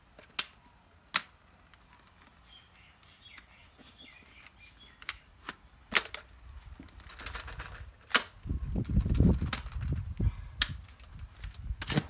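Sharp plastic clicks and knocks as the clear dust bin of a Dyson cordless stick vacuum is unlatched, handled and emptied, about seven separate snaps spread through, with a stretch of low rumbling handling noise about two-thirds of the way in.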